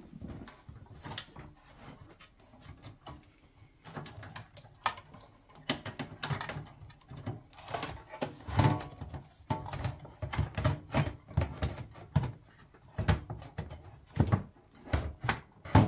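Hands working inside a steel PC tower case to free its ATX power supply and wiring, with irregular clicks, knocks and rattles of metal and plastic that come thicker from about a quarter of the way in.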